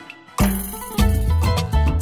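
Upbeat background music with a percussive beat; it drops out briefly at the start and comes back in.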